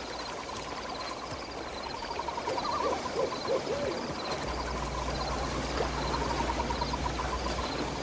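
Night ambience: an owl hooting a few times about three seconds in, over a steady rapid trilling chorus. A low steady tone comes in about halfway through.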